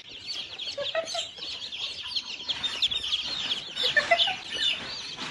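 A crate full of baby chicks peeping: many short, high-pitched peeps overlapping without a break.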